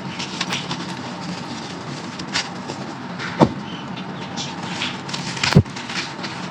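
Chunks of baked sand-clay crunching and crumbling in a clay pot, with a steady gritty crackle made of many small snaps. Two louder, sharper cracks stand out, one about three and a half seconds in and one about five and a half seconds in.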